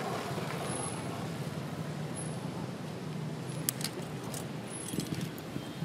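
Steady low drone of motor traffic or a running engine, with a few faint clicks a few seconds in.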